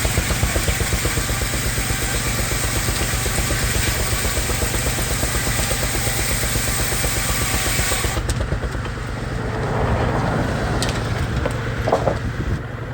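Baker uniflow steam engine chuffing with a fast, even beat while it drives a 60-inch circular sawmill blade through a log. The high cutting hiss stops about eight seconds in as the cut ends, and the engine runs on, with a few knocks near the end.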